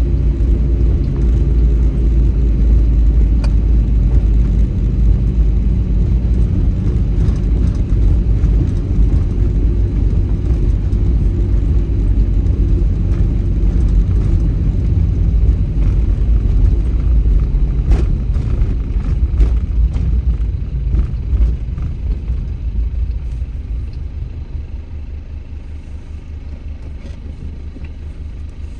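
Car driving: a steady low rumble of engine and road noise. The engine tone is clearest in the first half, and the sound eases off and gets quieter over a few seconds near the end.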